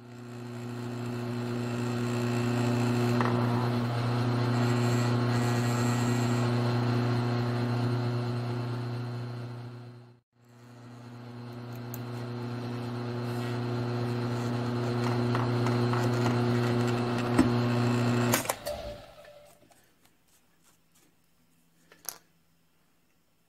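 Grizzly G1007 mill-drill's spindle motor running while a drill bores into a small metal part held in the vise, a steady hum. It winds down and stops about ten seconds in, starts up again, and is switched off with a click a few seconds before the end. Then come a couple of light clicks.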